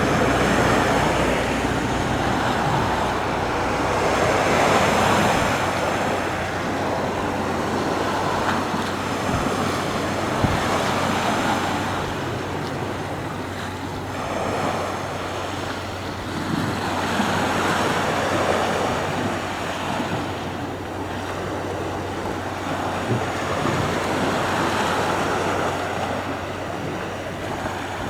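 Sea waves breaking and washing ashore, a steady rush that swells and falls back every five or six seconds.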